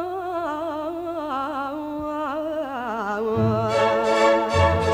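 Copla song: a woman's voice carries a long, wavering wordless line with vibrato. About three and a half seconds in, the orchestral accompaniment comes in with loud accented chords and bass notes.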